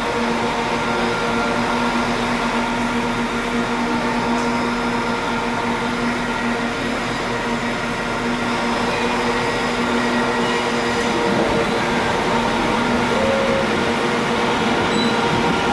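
Station platform ventilation blowers, which extract diesel fumes, running with a loud, steady whirring hum, several tones held beneath the rush of air. A Class 323 electric train pulls in underneath, the overall level creeping up slightly near the end.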